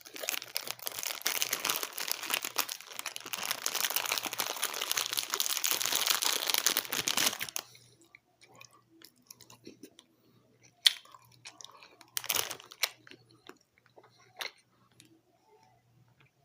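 Close-miked chewing of Fini gummy candies: a dense, crackly crunching for about seven and a half seconds, then only scattered mouth clicks and smacks.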